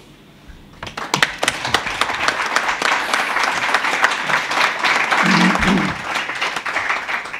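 Audience applauding. It starts about a second in, with many hands clapping densely, and tapers off near the end.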